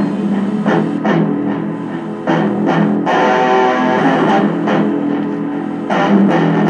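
Live rock band music led by an electric guitar, with chords sustained over a steady beat.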